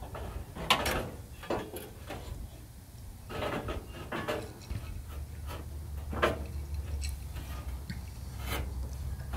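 Scattered scrapes, clicks and knocks of sheet-metal parts being handled and worked loose as the grille's center support is taken off the front end of a 1976 Chevy C10 pickup. A low steady hum comes in about halfway.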